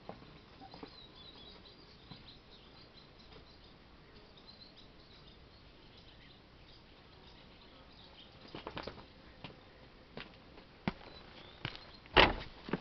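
Faint high chirping of small birds over quiet outdoor ambience. Scattered clicks and scuffs follow, then a loud thump near the end as a person's footsteps come close.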